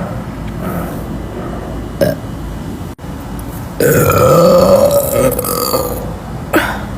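A woman's long, loud burp lasting about two seconds, starting a little past halfway through, its pitch rising at the low end as it goes.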